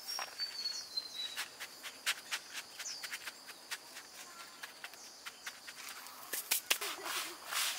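Outdoor ambience: a steady high insect drone and a bird's short falling whistles near the start, with irregular sharp clicks throughout that grow loudest and most frequent near the end.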